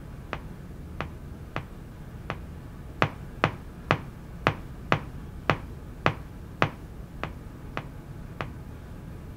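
A regular series of about fifteen sharp clicks, a little under two a second, growing louder toward the middle of the run and then fading.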